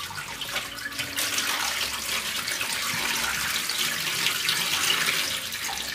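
Cloudy water being poured slowly from the edge of a plastic tub into a plastic basin in a sink: a steady, even trickle and splash as the water is decanted off settled cornstarch.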